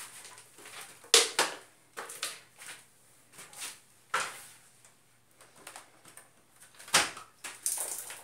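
Sharp plastic knocks and clicks from the opened indoor unit of a split-type air conditioner as its housing is handled and its lower section pulled loose. There are a handful of separate knocks, the loudest about a second in and near seven seconds, with a rustle near the end.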